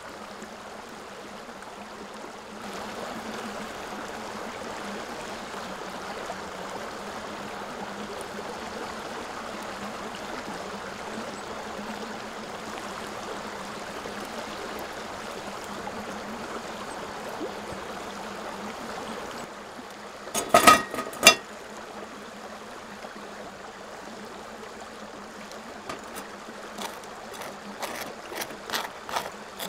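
Hot water poured in a thin stream from a gooseneck kettle onto coffee grounds in a paper pour-over filter: a steady trickle that starts about three seconds in and stops a little past the middle. A few sharp clinks follow, and near the end a run of light scraping clicks as a knife spreads butter on crisp toast.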